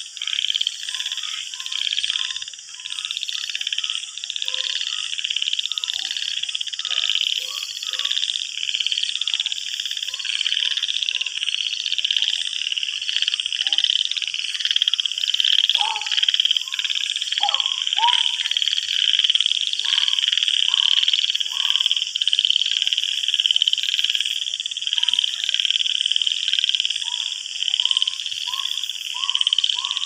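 Jungle frog chorus at night: many frogs giving short, falling croaks again and again, over a dense, steady high-pitched chorus.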